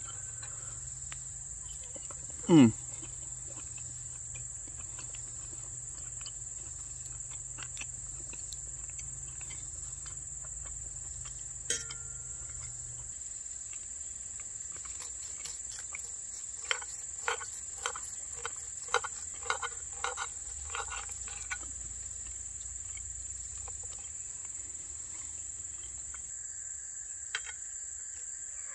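Insects trilling steadily at a high pitch. About two and a half seconds in there is one loud, short downward-sliding sound, and later a run of about a dozen short clicks or knocks.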